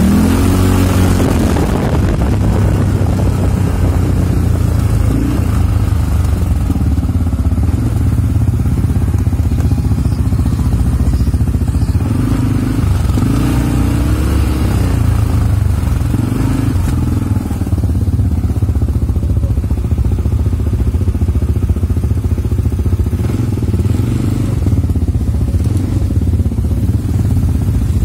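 CFMoto CForce ATV engine running under way, its note rising and falling several times with the throttle.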